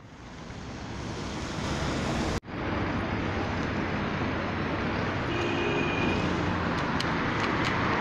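Road traffic at a city street intersection: a steady roar of passing cars with a low engine hum. A brief tone of about a second sounds about halfway through, and a few light clicks follow. Before this, a rising rush of noise cuts off abruptly about two and a half seconds in.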